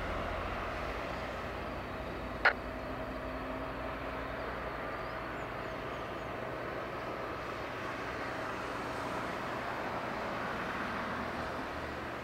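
Steady jet-aircraft noise across an airport apron as an Airbus A320 is pushed back by its tug: an even rush with a steady whine running through it. A single sharp click about two and a half seconds in.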